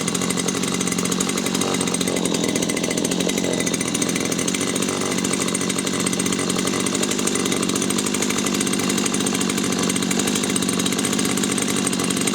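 Stihl HT 75 pole pruner's small 4-MIX petrol engine running steadily and loud at an even speed, warm, having just fired on a single pull.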